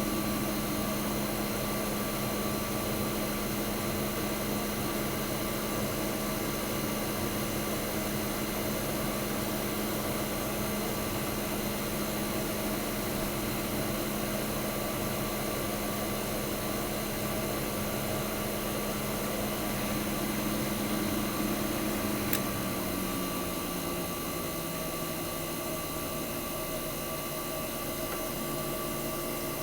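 1965 Fedders Weather Wheel 12000 BTU window air conditioner running steadily, its Tecumseh AJ reciprocating compressor and fans humming: the unit is running normally and cooling well. About 22 seconds in there is a faint click, and one of the steady tones drops slightly in pitch.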